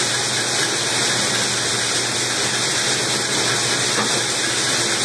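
Seed-cleaning line with a gravity table running as soldier beans flow through it, a steady, loud rushing hiss of machinery and moving beans.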